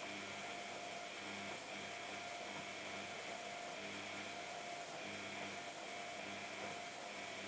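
Samsung washing machine running, with a high whining squeak that recurs about once a second as the drum turns.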